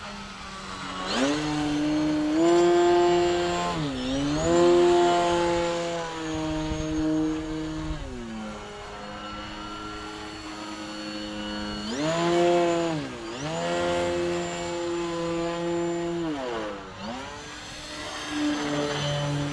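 Electric motor and propeller of a Flex Innovations Mamba 10 RC aerobatic plane in flight, with a high motor whine over the propeller buzz. The pitch rises and falls repeatedly as the throttle changes, with quick dips and recoveries about four, thirteen and seventeen seconds in.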